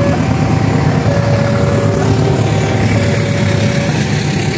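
Level-crossing warning alarm sounding a two-tone signal, switching between a lower and a higher tone about once a second. Under it is the heavy rumble of a train passing: a CC 206 diesel locomotive and its passenger coaches.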